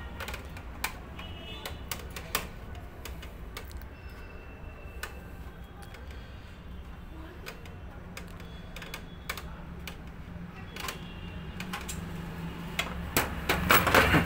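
A screwdriver backs a screw out of a copier's frame, making scattered light clicks and ticks over a steady low hum. A cluster of louder knocks and rattles comes near the end.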